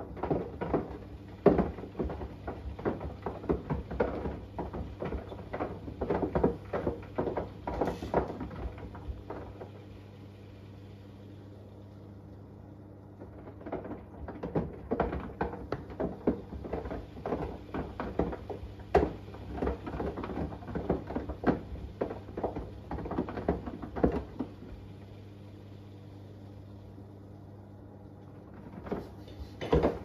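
Front-loading washing machine drum turning on a wash cycle, with an iPhone 11 clattering and knocking inside as it tumbles. The knocking comes in spells of about ten seconds split by pauses of about four seconds, as the drum stops and reverses, over a steady low hum.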